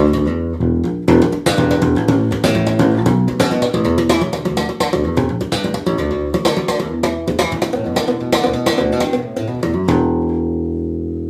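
Peavey RJ IV four-string electric bass played through a Tube Works RT-3300 bass head into a Marshall 2x15 cabinet: a fast run of notes with sharp attacks. About ten seconds in it settles on a held note that rings out and slowly fades.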